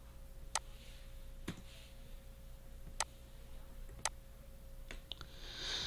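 Computer mouse clicking: about six single clicks spaced a second or so apart, the last two close together, over a faint steady electrical hum.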